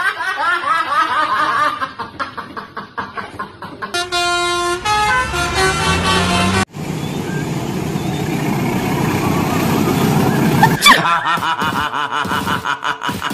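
Bus telolet horns, musical multi-tone air horns, tooting in a run of changing melodic patterns. There is an abrupt cut partway through to a noisier stretch.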